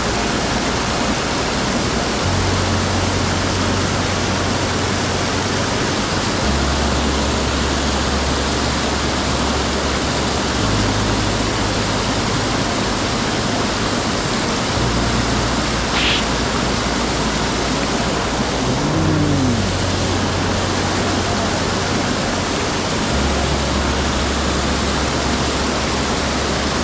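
A mountain stream rushing steadily, under background music whose low notes hold and change every few seconds. A brief sharp sound about two thirds of the way through.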